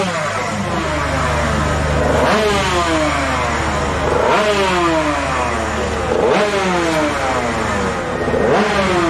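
Racing motorcycle engine, from a Loncin GP125 125cc two-stroke race bike, revved in sharp throttle blips about every two seconds. After each blip the revs fall away slowly, typical of a race engine being warmed up on its stand.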